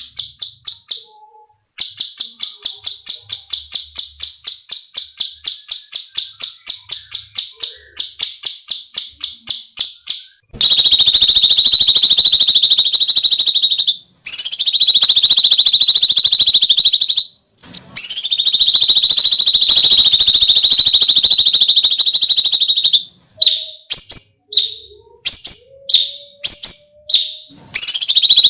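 Cucak cungkok songbird calling loud and shrill. First comes a fast, even run of high repeated notes, about four or five a second. Then come long harsh screeching calls, each lasting several seconds with brief breaks. Near the end it gives short, sharp downward-slurred chirps.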